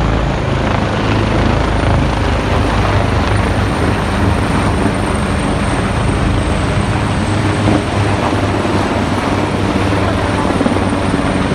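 A formation of military helicopters flying overhead, their rotors and engines making a loud, steady noise.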